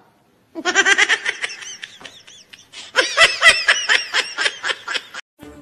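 High-pitched laughter in two bouts of rapid, repeated 'ha-ha' pulses, the first starting about half a second in and the second, slightly louder, running from about three seconds in to just past five.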